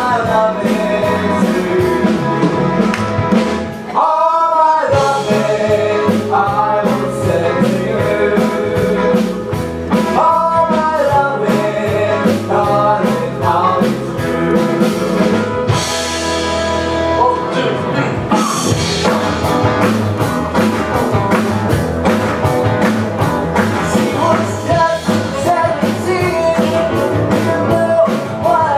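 A live band plays rock and roll with a drum kit, electric guitars and keyboards, with men singing lead. About four seconds in, the beat and bass drop out briefly under a held, wavering sung note.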